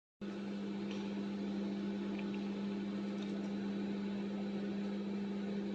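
LG convection microwave oven running, a steady electrical hum with its fan, with a few faint ticks.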